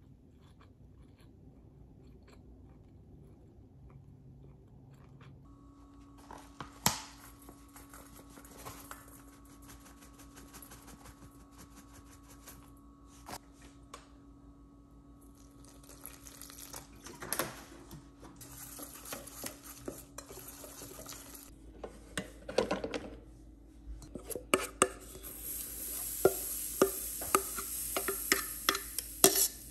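Cooking sounds: utensils clinking and knocking against pots and pans, with a steady hum that comes on about five seconds in. Near the end, food starts sizzling in a hot pan amid quick stirring knocks.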